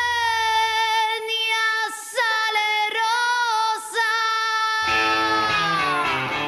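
A woman sings solo in long, high held notes with vibrato and a few short breaks. The low backing drops out about a second in, and about five seconds in guitar comes in under her last held note, which slides downward.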